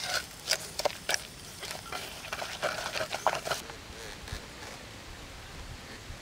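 Wooden spoon stirring a wet chili sauce in a wooden mortar, an irregular run of clacks and scrapes against the wood. It stops abruptly about three and a half seconds in, leaving a faint, even background.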